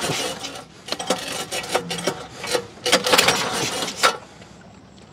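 A small petrol boat engine being pull-started again and again: several quick yanks of the recoil starter rope, each a short burst of noise, and the engine does not catch. The pulls stop about four seconds in. The men take the engine to be flooded with petrol.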